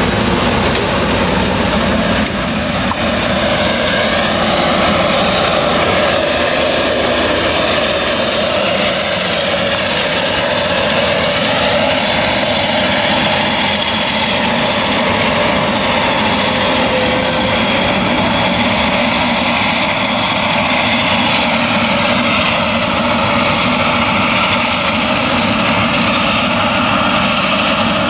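Claas Jaguar 970 forage harvester chopping maize, its MAN V8 engine running steadily under load with a slight wavering in pitch.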